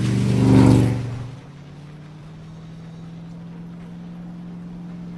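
A loud, buzzy pitched blast lasting about a second and a half, loudest about half a second in, followed by a steady low hum.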